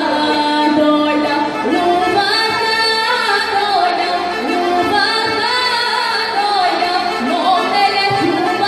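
A woman singing a Bulgarian folk song into a microphone, accompanied by a gaida (Bulgarian bagpipe).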